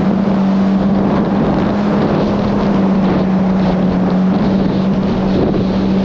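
Yamaha GP1800R SVHO jet ski's supercharged four-cylinder engine running at a steady speed while under way, with wind buffeting the microphone.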